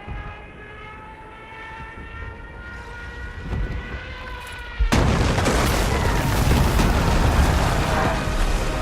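Airplane engine sound effect: a whine of several tones that climbs slowly in pitch, then, about five seconds in, a sudden loud burst of noise that keeps going.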